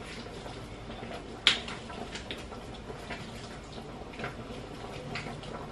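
Hands rubbing seasoning into raw salmon fillets in a glass dish: soft handling noise with faint scattered ticks, and one sharp tap about one and a half seconds in.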